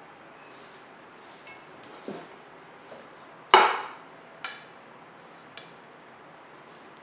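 Kitchen utensils and dishes knocking and clinking, about six separate strikes. The loudest, a little past halfway, rings briefly like metal or glass.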